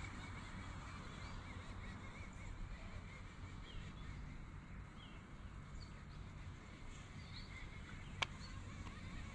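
Faint outdoor ambience: a steady low rumble with a few short bird chirps scattered through it, and a single sharp click about eight seconds in.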